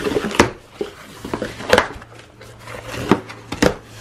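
Cardboard shipping box being opened by hand: packing tape ripping off the top and the cardboard flaps scraping and knocking, about four sharp noises among the rustling.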